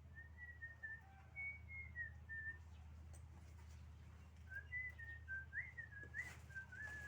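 A person whistling a tune softly: two short phrases of held notes with little slides between them, the second starting about four and a half seconds in. A steady low hum runs underneath.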